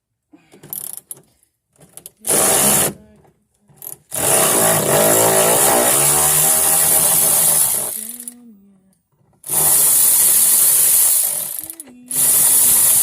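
Power tool spinning out a door's hinge bolts, run in four bursts, the longest about four seconds in the middle with its pitch wavering.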